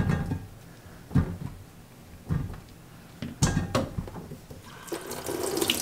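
Brined cucumbers knocking against each other and a plastic colander in a stainless steel sink, a handful of short knocks about a second apart. Near the end the kitchen faucet comes on and water starts running into the sink.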